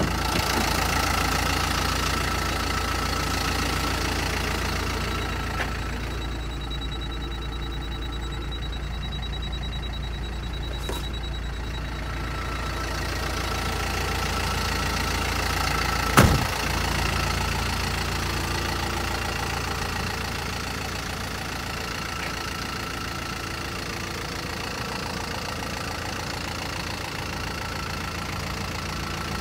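Toyota Dyna truck's engine idling steadily, with one sharp knock about halfway through.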